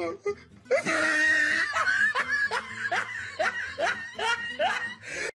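A person laughing in a long run of short ha's, about two or three a second, starting about a second in.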